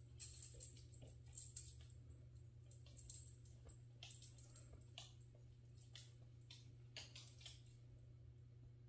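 Faint, scattered clicks and rustles of a small dog tugging and folding a fleece dog bed on a hardwood floor, over a low steady hum.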